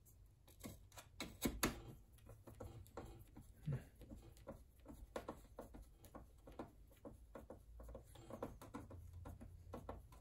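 Faint, irregular small clicks and scrapes of a Phillips screwdriver turning a screw into the plastic housing of an opened sewing machine, with light taps of fingers on its parts.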